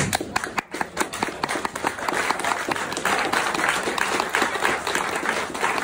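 A roomful of people applauding: scattered hand claps at first, thickening into dense, steady applause about two seconds in.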